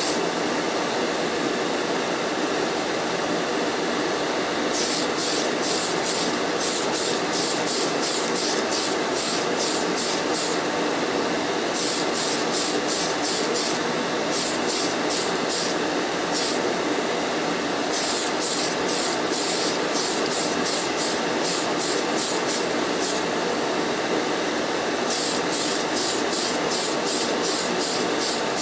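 Aerosol can of Tamiya Surface Primer spraying with a steady hiss, over the constant rush of a spray booth's extraction fan. Several runs of rapid, regular high pulses come and go.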